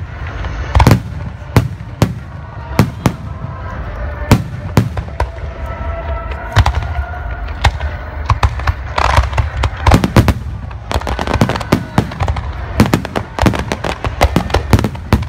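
Aerial firework shells bursting one after another, a sharp boom every second or so, quickening into a rapid barrage of bursts in the last few seconds.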